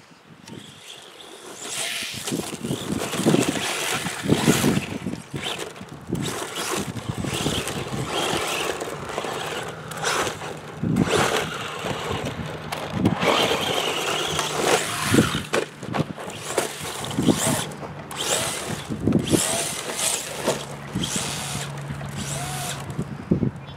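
Traxxas Slash 4x4 VXL radio-controlled short-course truck running on a dirt track: its brushless electric motor whines, rising and falling with the throttle, over tyres scrabbling on loose dirt and short knocks from the chassis hitting the ground.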